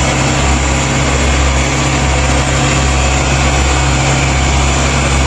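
Diesel engine of a Cat CS10 GC single-drum soil compactor running steadily as the roller drives along, a continuous low hum under an even engine hiss.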